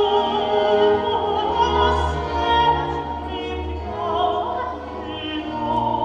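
Orchestral classical music with long held notes over a low bass: the accompaniment to a stage dance.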